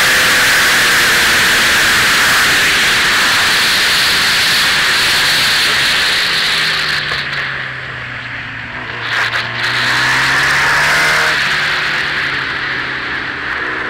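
Motorcycle on the move, heard from the bike: wind noise over the microphone with the engine running underneath. About halfway through the wind eases and a low, steady engine note comes through as the bike slows. Near the end the engine note rises again as it picks up speed.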